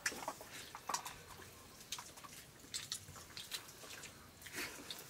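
Wet eating sounds: slurping from a metal plate and fingers working rice on metal plates, in faint, scattered small smacks and clicks.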